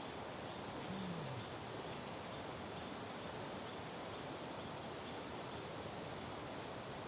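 Steady rushing noise of a flowing river current, with a short low voice sound about a second in.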